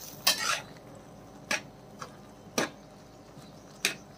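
Metal spatula clinking and scraping against the side of an aluminium pot while stirring freshly cooked noodles: a few separate short clinks, roughly one a second, the first a little longer scrape.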